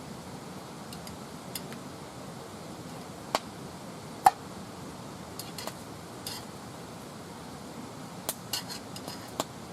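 Metal camp cookware and utensils clinking and knocking: scattered sharp clicks at uneven intervals, the loudest about four seconds in with a short ring, and a quick run of clinks near the end, over a steady low hiss.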